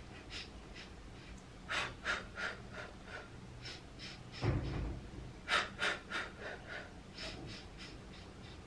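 A woman's short, sharp breaths puffed in and out in quick sets of about five, the counted breathing of the Pilates hundreds exercise. A low thud about four and a half seconds in.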